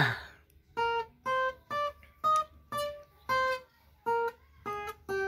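Acoustic guitar played one note at a time: a short melody of about nine separate picked notes, roughly two a second, starting after a brief pause.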